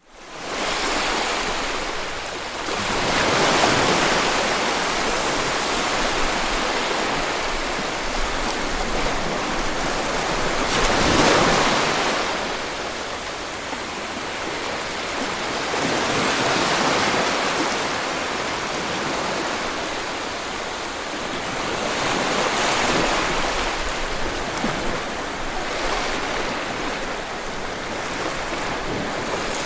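Ocean waves washing onto a shore, a steady surf hiss that swells and ebbs about every six seconds as each wave breaks. It fades in from silence over the first second, and the loudest swell comes about eleven seconds in.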